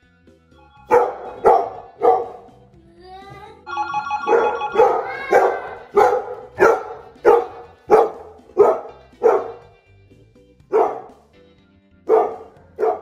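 Chocolate Labrador Retriever barking hard at the door, a rapid run of loud barks about two a second with short pauses around three and ten seconds in, the excited alarm barking of a dog set off by the doorbell.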